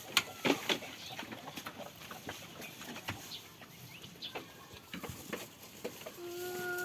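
Goats on a farm: scattered small clicks and knocks, then near the end a long drawn-out bleat that holds its pitch and then falls.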